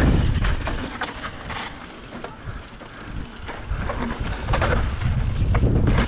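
Mountain bike descending a dry, rocky dirt trail: tyres rolling over dirt and rock, with knocks and rattles from the bike over bumps. Under them is a low rumble that eases off in the middle and builds again near the end.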